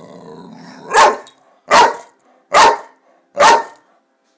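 Seven-month-old boxer puppy barking four times in an even rhythm, about a bark every second, after a quieter low grumble. These are excited play barks from a play bow.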